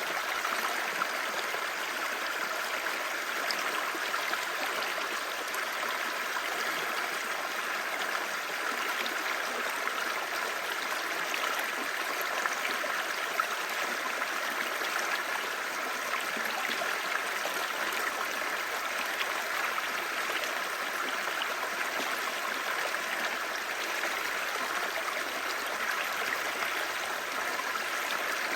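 A shallow, clear stream babbling steadily over stones, with small splashes and gurgles on top.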